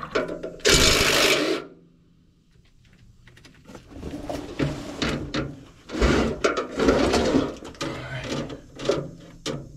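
Gear oil gushing out of a PTO cover into a drain pan, which stops about a second and a half in. From about four seconds on, a DeWalt cordless impact wrench hammers in short bursts on a PTO cover bolt.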